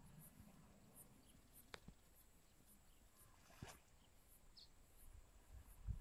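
Near silence, with faint high insect chirping repeating about twice a second and two brief clicks, about two and three and a half seconds in.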